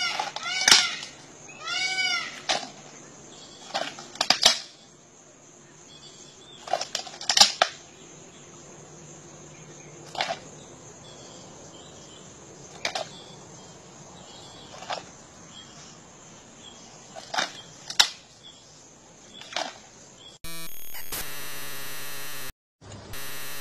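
An alligator crunching prey in its jaws: single sharp cracks every one to three seconds. A few arched, rising-and-falling cries come in the first two seconds. About 20 seconds in a loud steady noise starts suddenly, breaks off briefly and resumes.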